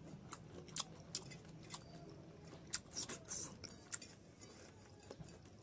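Close-up chewing of soft boiled pork fat, with scattered sharp wet clicks and smacks. Fingers scrape small bits across a steel plate.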